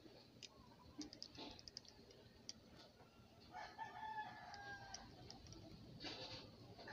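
A rooster crowing once, faintly, for about a second and a half, starting about three and a half seconds in; a few light clicks come before it.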